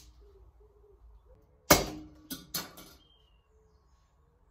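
Blacksmith's hammer striking a steel workpiece on an anvil: one loud blow, then two lighter ones in quick succession, each ringing briefly. The piece has cooled and is being worked cold.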